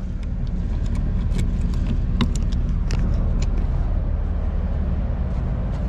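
A motor vehicle's engine idling steadily with a low hum, with a few light clicks scattered through.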